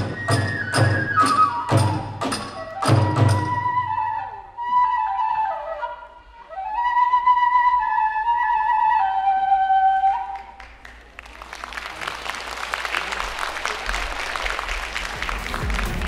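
Kagura hayashi: drum and hand-cymbal strikes under a bamboo fue flute, and the drums and cymbals stop after about three and a half seconds. The flute plays on alone with a bending, sliding melody and stops about ten seconds in. Then a dense crackling noise follows, like applause.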